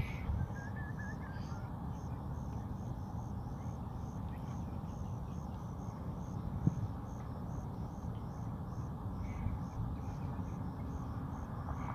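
An insect chirping in a steady, even rhythm, a high chirp a little over two times a second, over a steady low outdoor rumble. There is a single sharp click about two-thirds of the way through.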